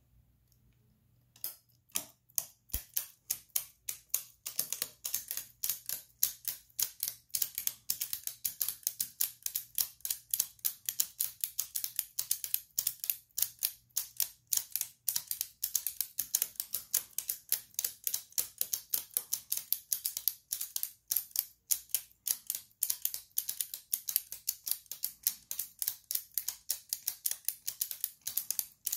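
3D-printed plastic flying tourbillon mechanisms ticking, their escapements clicking rapidly and unevenly. The clicking starts about a second and a half in, once the mechanisms are released and running.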